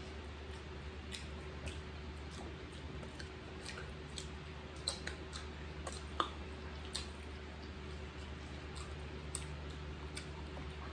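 Wet eating sounds of people biting and sucking ripe mango slices: scattered small smacks and clicks, one sharper about six seconds in, over a steady low hum.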